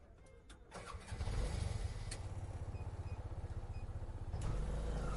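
Three-wheeler auto rickshaw engine being started: a few clicks, then it catches about a second in and runs with a steady, fast putter, getting louder a little past four seconds in.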